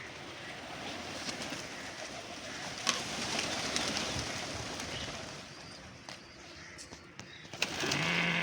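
Domestic pigeons cooing over a steady rustling background. Near the end a short, low drawn call rises in loudness.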